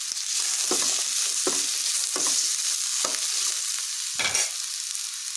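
Freshly added bottle gourd cubes and green chillies sizzling in hot oil in a frying pan, with a utensil stirring and scraping through them about five times, the loudest stroke near the end.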